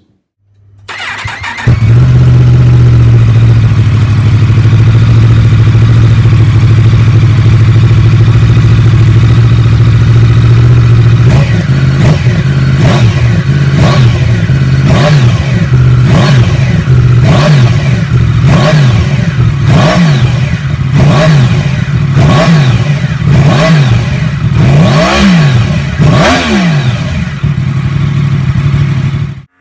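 Yamaha MT-10's crossplane inline-four, through a short carbon Fuel F1R slip-on exhaust, starts up near the beginning and idles steadily for about ten seconds. It is then blipped over and over, roughly once a second, each rev rising and falling back, until the sound cuts off just before the end.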